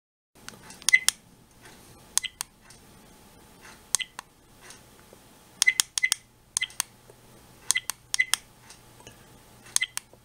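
Buttons on a G1W car DVR clicked repeatedly while its settings menu is stepped through: sharp clicks, often in quick pairs, every half second to a second and a half.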